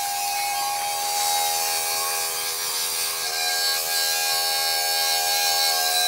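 Continuous night chorus of insects: a steady high chirring, with a droning hum beneath it that dips slightly in pitch a little past the middle.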